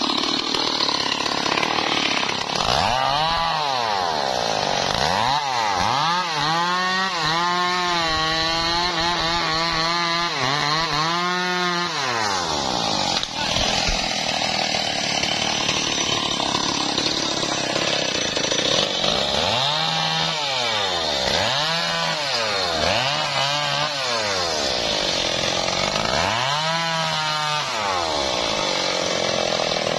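Stihl two-stroke chainsaw running throughout while cutting teak, its engine pitch repeatedly rising and falling in surges as it is revved and loaded, with a steadier stretch in the middle. There is a single sharp knock about thirteen seconds in.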